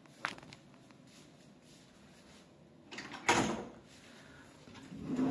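A short click near the start, then a wooden wardrobe drawer sliding open about three seconds in, with a second, softer sliding sound near the end.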